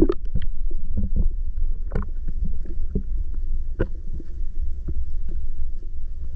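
Muffled underwater rumble picked up by a GoPro in its waterproof housing, with scattered small clicks and knocks, two louder ones about two and four seconds in.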